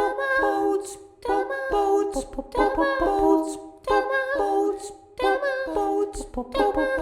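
Unaccompanied singing: a high voice in short phrases with brief gaps between them and crisp 's' sounds.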